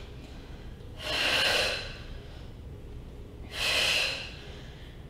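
A woman's audible mouth breaths: two forceful breaths, about a second in and about three and a half seconds in, each under a second long, paced to the reach-and-circle of a Pilates double leg stretch.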